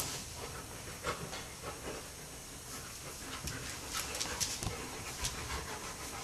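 Two sun bears play-fighting at close quarters: heavy panting breaths and scuffling, with scattered sharp clicks.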